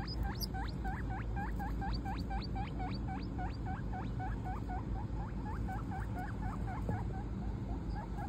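Guinea pig wheeking: a rapid run of short squeals, each sweeping sharply upward in pitch, about four a second, becoming shorter and fainter in the second half.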